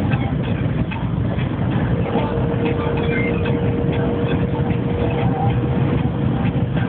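Steady engine and road rumble heard from inside a moving road vehicle's cabin, with small rattles and clicks throughout. A faint steady whine comes in about two seconds in.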